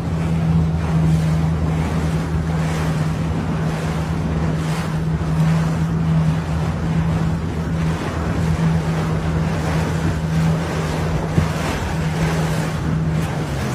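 A small boat's motor running at a steady pitch, with water splashing against the hull in repeated swells and wind buffeting the microphone as the boat moves across choppy water. A single short knock comes near the end.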